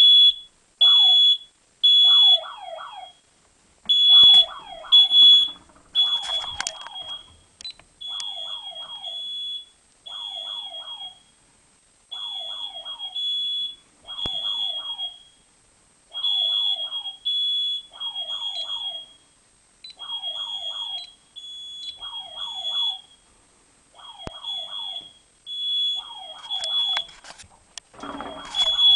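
DSC wireless smoke detector in alarm, sounding a high beep in repeating groups of three with a pause after each group (the temporal-three fire pattern), set off by test smoke. Lower falling chirps follow the same rhythm. The beeps are loudest over the first few seconds and quieter after that, with short bursts of hiss about six seconds in and near the end.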